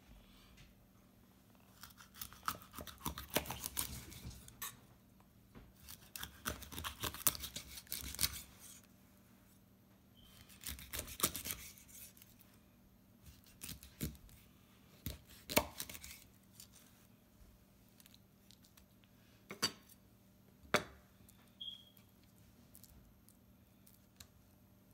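Kitchen knife cutting a hilsa into steaks on a wooden cutting board: several crackly, crunching strokes a second or two long as the blade goes through skin and bone, followed later by a few sharp single knocks of the blade against the board.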